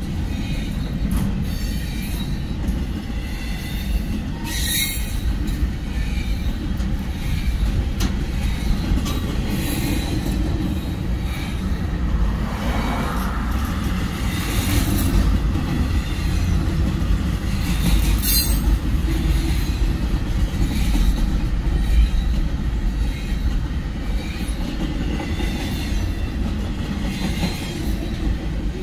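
Double-stack container freight cars rolling steadily past a grade crossing: a continuous low rumble of steel wheels on the rails, with two brief, sharp high-pitched noises about five and eighteen seconds in.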